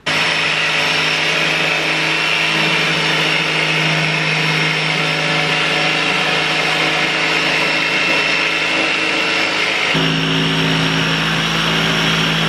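Electric jigsaw cutting through plywood: a steady motor hum with the blade's rasp. The tone changes about ten seconds in.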